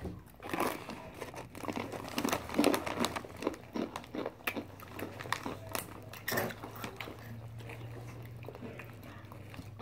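Foil snack bags of Takis rolled tortilla chips crinkling as hands reach in, mixed with crunching and chewing of the chips: irregular crackles that thin out after about seven seconds, leaving a faint steady low hum.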